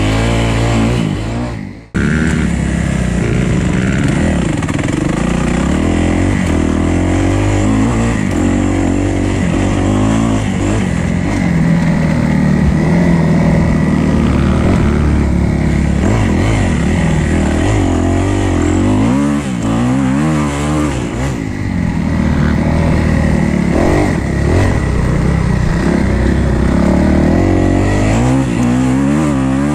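Kawasaki KX250F's single-cylinder four-stroke motocross engine under hard riding, its pitch rising and falling again and again as the throttle is opened and shut. The sound fades out briefly and cuts straight back in about two seconds in.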